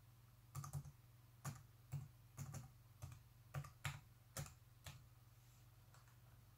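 Typing on a Lenovo ThinkPad X131e laptop keyboard to enter an email address: about a dozen irregular keystrokes that stop about five seconds in.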